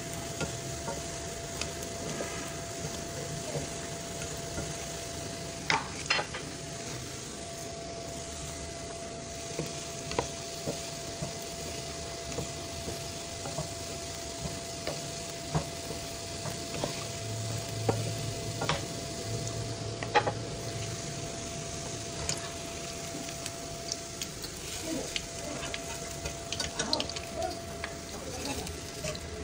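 Gulab jamun dough balls sizzling steadily as they deep-fry in hot oil in a wok, stirred and turned with a spoon that clicks sharply against the pan now and then. A faint steady hum runs underneath.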